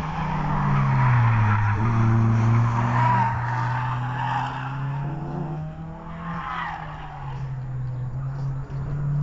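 Race car engine running while its tyres squeal through the corners. The engine note drops about a second in, and the tyres squeal again, briefly, about two-thirds of the way through.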